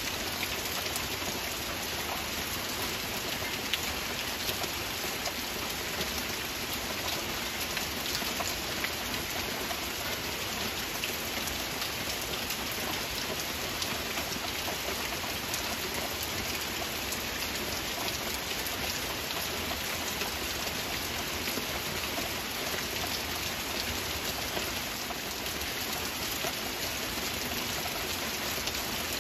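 Steady, gentle rain, with many small individual drop impacts ticking over an even hiss.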